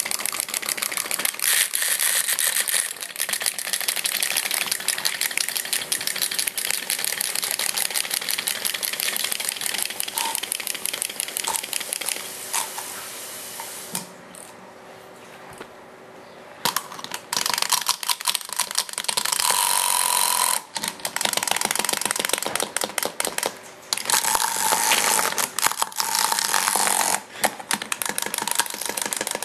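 Clockwork wind-up hopping toys running on a hard floor: a rapid, steady clicking clatter from their spring mechanisms as they hop. It drops away about 14 seconds in and starts again a couple of seconds later.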